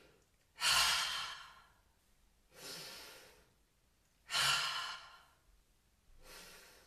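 A woman breathing deeply as a relaxation exercise: two long, loud sighs out, each with a quieter in-breath after it.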